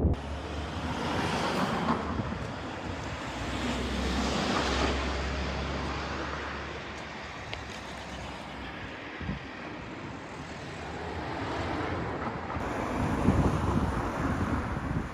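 Outdoor rushing noise of passing road traffic, swelling and fading a few times, with wind on the microphone.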